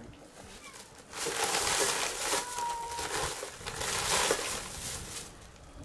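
A crinkling, rustling noise that starts about a second in and lasts about four seconds, with a brief steady high note partway through.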